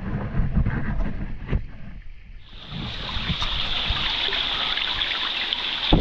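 Water pouring and spraying down like heavy rain. Low rumbling and knocks fill the first two seconds or so, then a strong, steady hiss of falling water sets in about two and a half seconds in.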